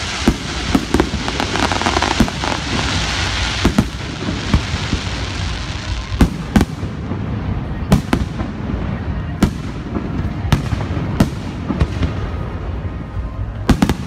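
Aerial firework shells bursting one after another at irregular intervals, each a sharp boom over a steady low rumble, with a dense hiss in the first few seconds.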